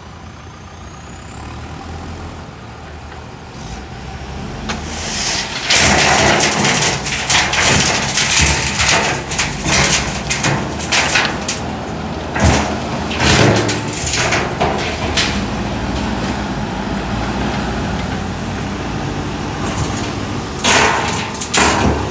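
JCB 3DX backhoe loader's diesel engine running steadily, louder from about six seconds in, with repeated scraping and crunching of gravel and stones as the machine works them. The crunching comes in spells, eases off in the middle, and picks up again near the end.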